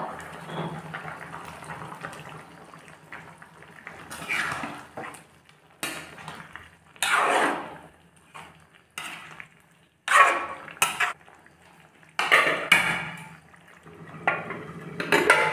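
A spoon scraping and knocking against a bowl and a metal wok as mashed tomato is tipped into the simmering curry and stirred. The sounds come as a series of separate scrapes and knocks from about four seconds in.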